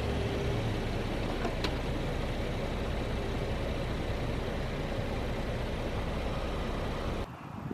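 A car running steadily: a low rumble under an even hiss, cutting off suddenly about seven seconds in.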